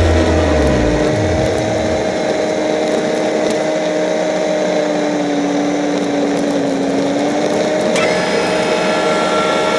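ATV engine running at a steady speed, a held whine over rushing noise, its pitch sagging slightly about seven seconds in.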